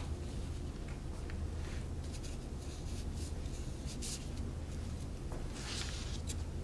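Chinese ink brush stroking across the paper in a few short, scratchy swishes, the strongest about six seconds in, over a steady low hum.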